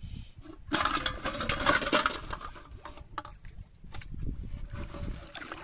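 Splashing and clattering from about a second in, lasting a second or so: a fish thrashing in a water-filled aluminium pot among plastic bottles. A steady low rumble runs underneath.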